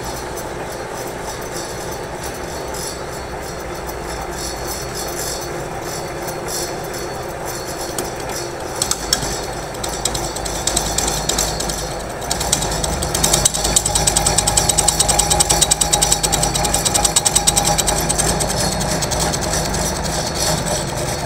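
Metal lathe running as it turns a steel shaft, with a steady motor and gear hum. About twelve seconds in the cut gets louder, with a fast rattling scrape as the tool bites into the spinning shaft.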